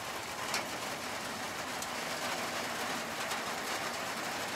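Heavy rain falling steadily, a horrendous downpour, with a few sharper drips standing out.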